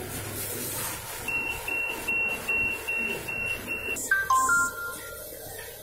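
OSHIMA needle detector sounding its metal-detection alarm: seven short high beeps, about two and a half a second, as the ferrous test card with its embedded metal point passes through. About four seconds in, a short lower tone follows that steps down in pitch.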